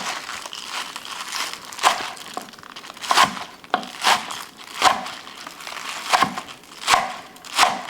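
Shredded raw cabbage and sliced scallions rustling and crunching as they are tossed together by hand, in repeated strokes about once a second.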